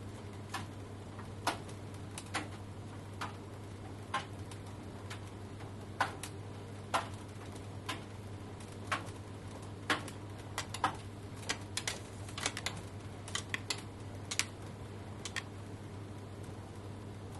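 Tumble dryer running: a steady low hum with irregular light clicks and taps as the tumbling load knocks against the drum. The clicks thin out and stop near the end.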